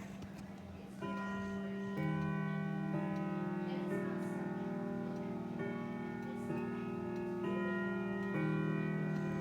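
Grandfather clock chiming a melody, a new note struck about once a second, each one ringing on under the next, with the clock's ticking beneath.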